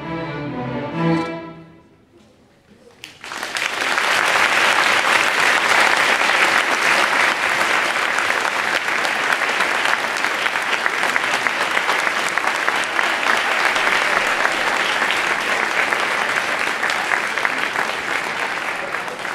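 A string orchestra's final chords, ending about two seconds in, then a brief hush and long audience applause that is the loudest part.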